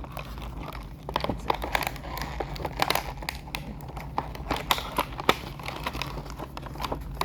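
Toy packaging being crinkled and pulled at while a box is opened, a run of crackles and rustles starting about a second in.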